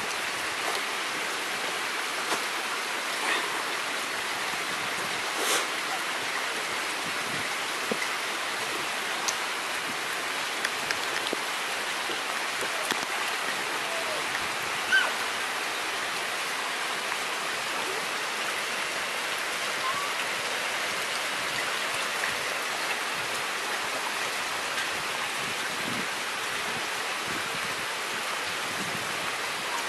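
Steady rain falling on wet ground, a constant even hiss with a few short louder taps and drips scattered through it.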